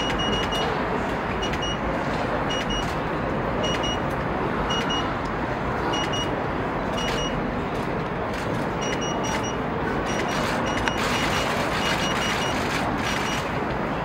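Steady outdoor crowd and city noise. Short high electronic beeps come in runs about once a second, and quick clicks of camera shutters grow denser in the last few seconds.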